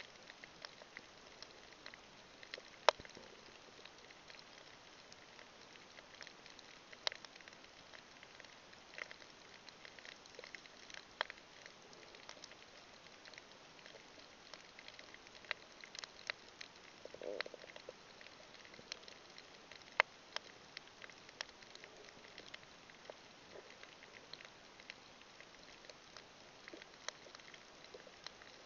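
Faint underwater ambience from a coral reef: a low steady hiss scattered with sharp clicks and crackles, two louder clicks standing out, one about three seconds in and one a little past two-thirds of the way.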